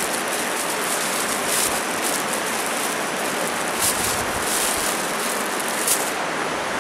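Steady rushing of shallow river rapids, with a few short crinkles of a plastic bread bag being opened and handled.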